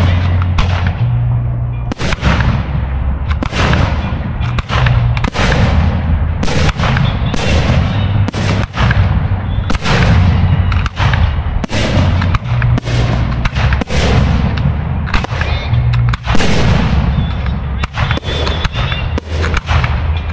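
Aerial fireworks bursting in rapid succession, many sharp bangs a second with no let-up. Music with a deep, stepping bassline plays underneath.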